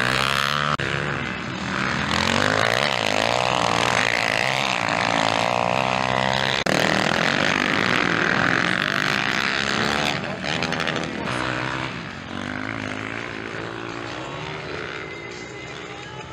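Motocross dirt-bike engines revving hard, their pitch climbing and dropping as the riders open and close the throttle through the turns. The engine is fainter and more distant over the last few seconds.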